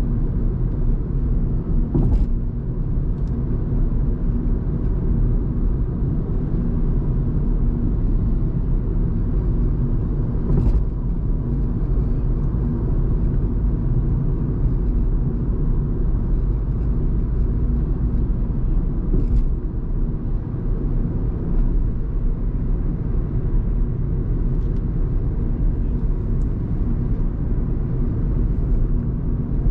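Steady low road and tyre rumble inside the cabin of a car driving at expressway speed, with a few brief knocks at intervals.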